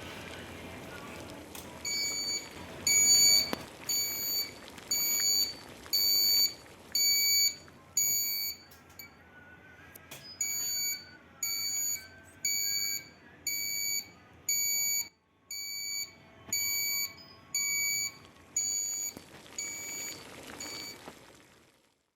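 Electronic alarm buzzer beeping: a high-pitched beep repeated a little faster than once a second, broken by a short pause near the middle, with a steady hiss beneath.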